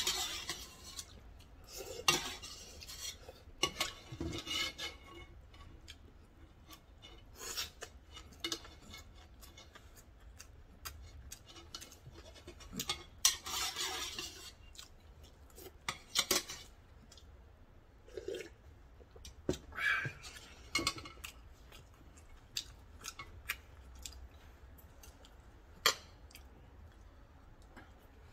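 Metal chopsticks and spoon clinking and scraping against a thin yellow aluminium ramen pot as the last noodles are picked out, in scattered separate clicks and short scrapes.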